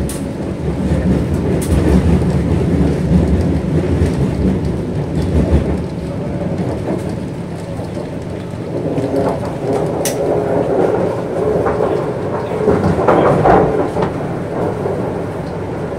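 MTR Kwun Tong line C-Train running along the track: a heavy, steady rumble, strongest in the first few seconds, with a cluster of tones rising out of it in the second half and a sharp click about ten seconds in.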